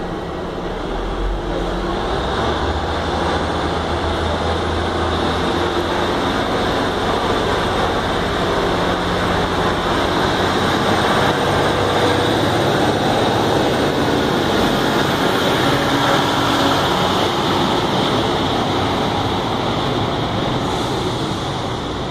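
A Class 150 Sprinter diesel multiple unit pulling out of the station. Its underfloor diesel engines open up as it starts away, and the engine note and wheel-on-rail rumble grow louder as the carriages pass close by, then ease off as it draws away near the end.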